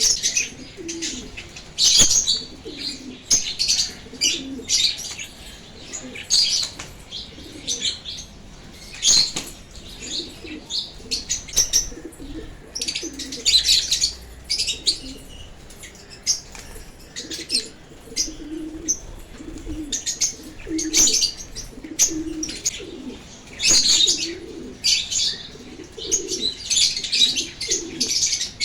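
Several lovebirds chirping: short, high, shrill chirps in quick clusters every second or two, with a lower repeated call underneath.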